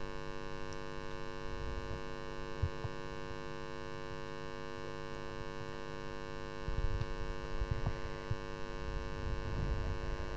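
Steady electrical mains hum, a stack of unchanging tones, with no speech. A low rumbling noise comes in about two-thirds of the way through.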